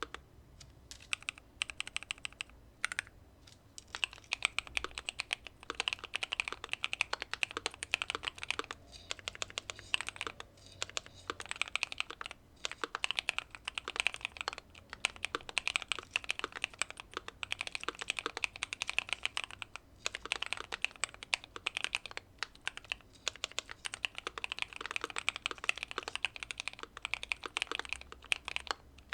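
Keychron Q2 mechanical keyboard with factory-lubed Pearl Lemon switches, a tape mod and case foam, typed on in fast, continuous runs of keystrokes broken by a few brief pauses.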